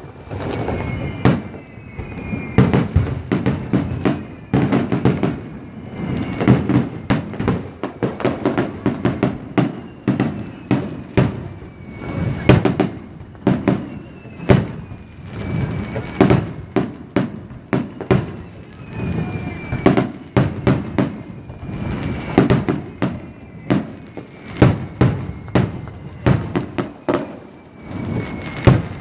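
Aerial firework shells bursting: a continuous run of booms and crackling, often several bursts in quick succession.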